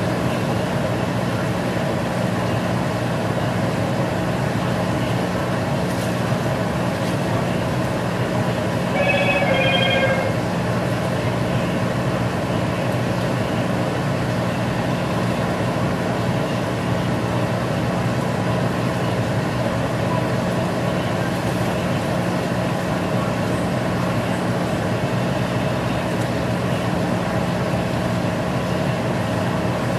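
A steady mechanical hum runs throughout. About nine seconds in there is one short, pitched chirp of a few quick stepped notes.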